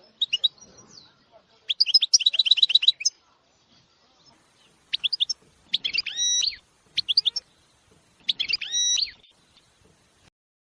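A small songbird singing in several separate bursts of rapid high trills and swooping chirped phrases, with short quiet gaps between them.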